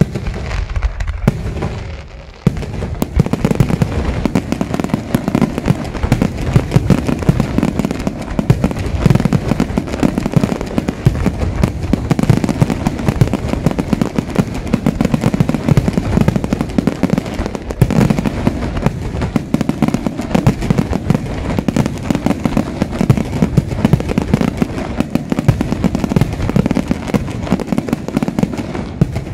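Parente Fireworks aerial shells bursting in a finale: a rapid, nearly continuous barrage of loud bangs, with a brief lull about two seconds in before it comes back at full strength.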